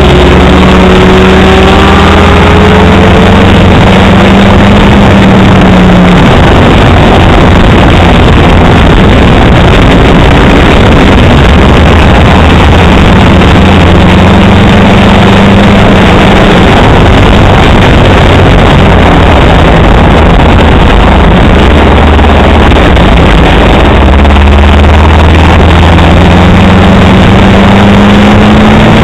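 Ford Model A Speedster's four-cylinder engine at racing speed, heard on board: a loud, distorted engine note whose pitch falls and climbs again several times as the revs drop and build through the laps.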